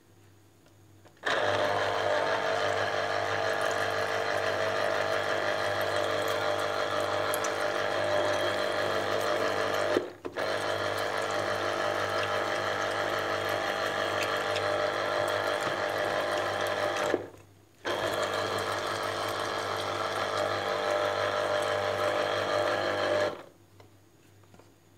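A small electric kitchen appliance motor running steadily at high speed. It cuts out briefly twice and then switches off near the end.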